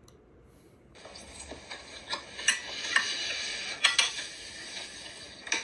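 Light clicks and clatter over a steady hiss, starting about a second in, with a few sharper clicks near the middle.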